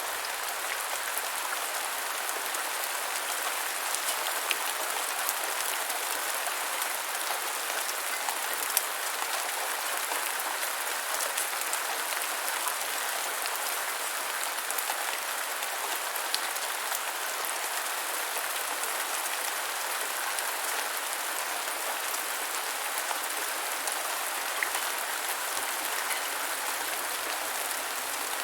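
Steady rain falling on the ground, an even hiss with many small drop hits and an occasional louder splat.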